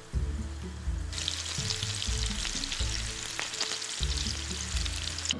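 Potato balls frying in olive oil in a skillet, with a steady crackling sizzle that starts about a second in as butter goes into the hot pan and foams.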